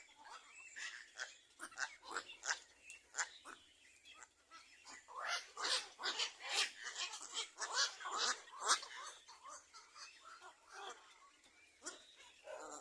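Birds in a nest giving rapid, harsh calls, many short calls in quick succession, busiest in the middle, typical of nestlings begging to be fed.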